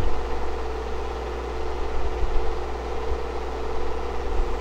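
Film projector running: a steady low motor-and-fan hum with a constant hiss and a faint steady tone above it.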